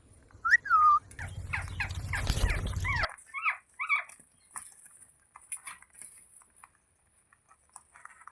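A baby Indian ringneck parakeet calling in a quick run of short, bending squawks, with a low rumble under them for the first three seconds. Two more calls follow about four seconds in, then only faint ticks.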